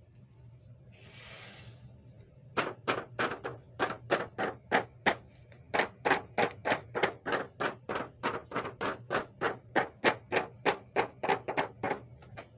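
A short rustle, then a long run of sharp, evenly spaced clicks or taps, about three a second, from small hard objects being handled.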